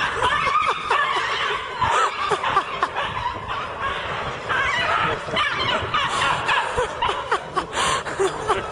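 People laughing and giggling.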